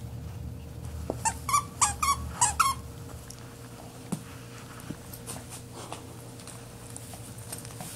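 Squeaker in a plush candy-cane dog toy squeaking about six times in quick succession as a small dog bites down on it, followed by a few soft clicks.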